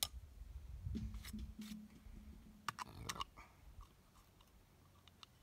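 A few short clusters of sharp clicks and plastic crackling from hands handling a bottle of two-stroke oil, with a faint low hum for a second or so.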